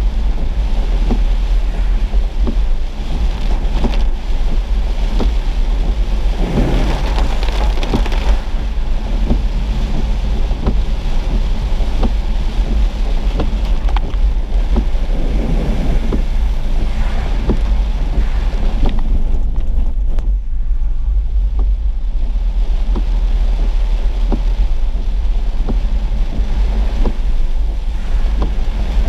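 Inside a car driving through heavy rain: a steady low rumble of road and wind noise, with raindrops ticking irregularly on the windshield. Two louder rushing swells come about seven seconds in and again around fifteen seconds.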